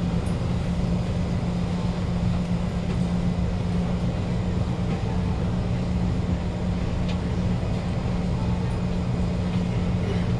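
Steady low hum of a stationary KHI C151 train's air-conditioning and auxiliary equipment, with one constant drone note over a low rumble, while it stands at the platform with its doors open.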